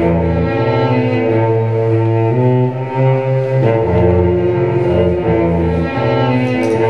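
Solo cello played with the bow: sustained low notes held under higher notes that change about every second.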